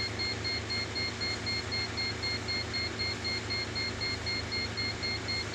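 Steady machine hum with a high-pitched beep repeating rapidly over it.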